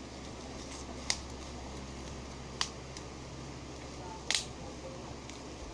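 Bubble wrap bubbles popped one at a time between a child's fingers: three sharp pops about a second and a half apart, over a steady background hiss.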